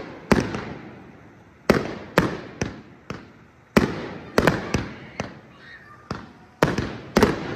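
Aerial fireworks bursting overhead: about a dozen sharp bangs at uneven intervals, some in quick pairs, each followed by a rolling echo.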